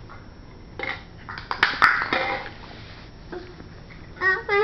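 A few light clicks and knocks with a short breathy burst about two seconds in, then near the end a young child's high voice starts up in a sing-song glide.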